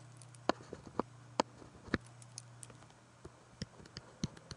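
Scattered light clicks and taps, about eight of them at uneven intervals, over a faint steady low hum.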